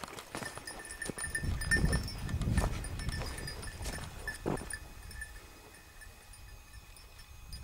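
Small metal bell tinkling on and off, with a low rumble of wind or handling on the microphone about two seconds in and a few knocks of steps on the stony ground.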